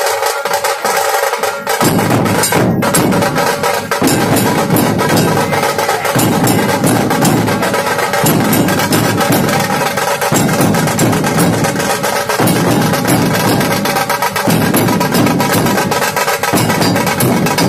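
Drum music with fast, dense strokes throughout; deeper drum beats come in about two seconds in and pulse in roughly two-second phrases.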